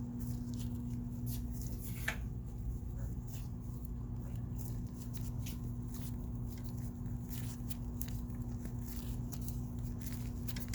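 Light scraping and clicking of a hand tool turning the trip latch adjustment screw on a GE AKR-30/50 low-voltage power circuit breaker, over a steady low hum.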